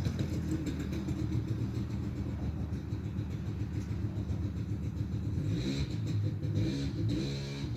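Small motorcycle engine running, revving up twice near the end.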